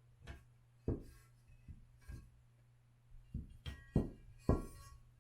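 Metal board parts being handled and set down on a hard work surface: a run of about eight separate knocks and clunks, the louder ones near the end ringing briefly like metal.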